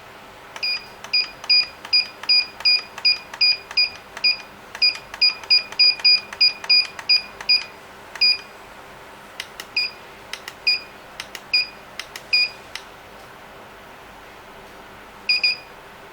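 Keypad beeps from a GSM home alarm panel as its keys are pressed: a quick run of short, high, single-pitched beeps, each with a small key click, then slower spaced beeps, and two more near the end.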